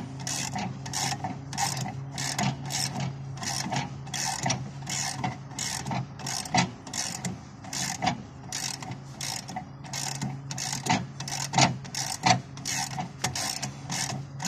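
Ratchet wrench clicking in repeated strokes, about two a second, as it is swung back and forth to loosen a pocket bolt on a Bandit ZT1844 stump grinder's cutter wheel.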